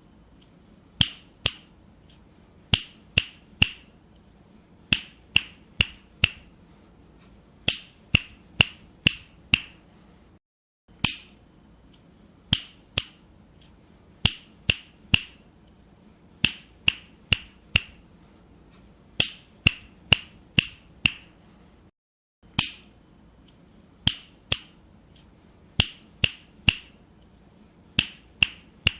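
Fingers snapping: sharp single snaps in irregular clusters of two to five, roughly half a second apart, with short pauses between clusters and two brief dropouts to silence.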